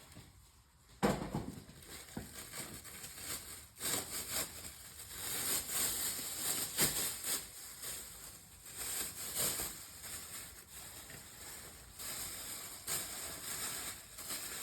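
Motor oil being poured from a bottle into the engine's oil filler: an irregular rushing that swells and fades several times, after a single thump about a second in.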